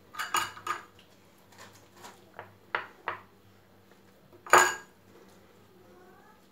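A metal spoon clinking against ceramic bowls: a series of light clinks, then one louder, ringing clatter about four and a half seconds in.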